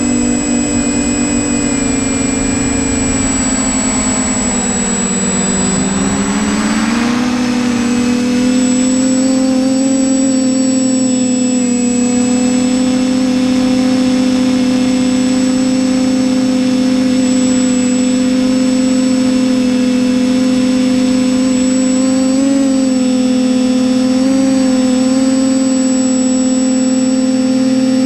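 Electric motors and propellers of a TBS Discovery Pro quadcopter whining steadily, heard close up from its onboard camera. The pitch dips about five seconds in and rises again, then holds steady.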